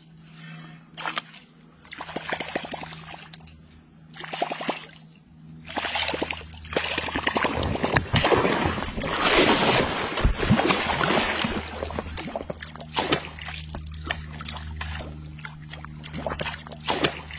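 A hooked fish thrashing and splashing at the water's surface, with water sloshing in irregular bursts, loudest in the middle stretch.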